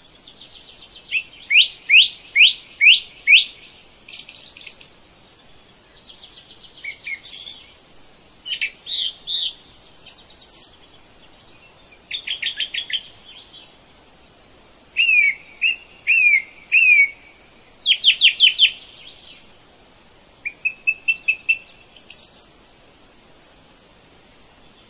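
Songbird singing a run of separate phrases, each a quick high note repeated three to six times, with short pauses between the phrases.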